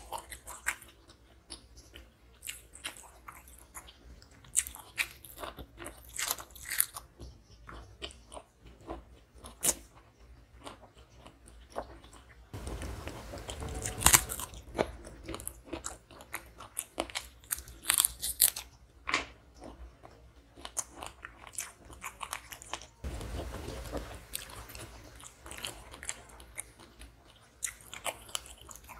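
Close-miked eating: repeated crunchy bites and chewing of raw vegetables, with the loudest crunch about halfway through as a raw petai (stink bean) is bitten.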